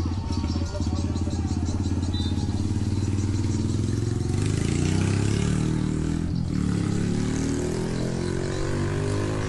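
Motor running loud and steady, its pitch rising and falling from about the middle onward.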